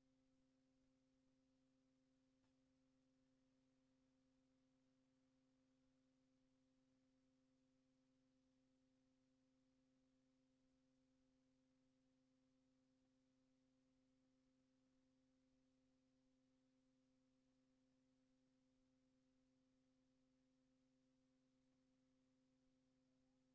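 Near silence, with only a very faint steady hum of a few tones over low hiss.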